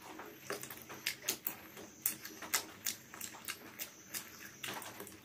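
Close mouth sounds of a man eating spiced chicken leg pieces: irregular smacking and clicking as he bites and chews meat off the drumstick, several a second, a few louder than the rest.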